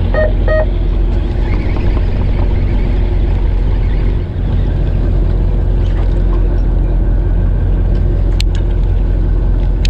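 Fishing boat's engine running steadily at idle, a constant low hum. Two sharp clicks come near the end.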